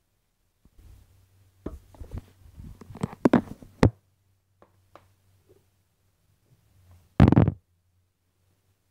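Clatter of handling in a kitchen: a quick run of knocks and clicks about two to four seconds in, a few faint ticks, then one loud short thump near the end.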